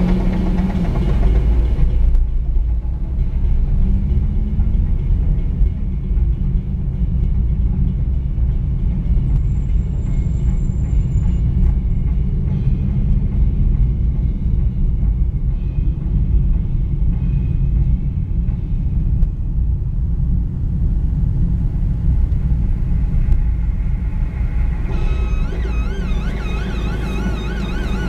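Steady low road and engine rumble inside a moving car, picked up by a dashboard camera. Near the end, faint music with wavering tones comes in over it.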